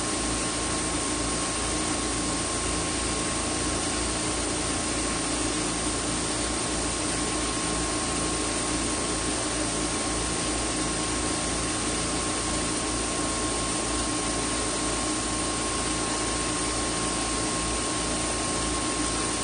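Drum-type blower machine for odour-removal treatment running steadily: a continuous rushing of air with a thin, steady whine.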